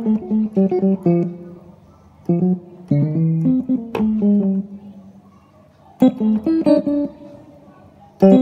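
Yamaha PSR-E433 keyboard playing quick runs of notes in four short phrases with pauses between, on a layered dual-voice tone set up for praise songs with a short release, so each note dies away fast.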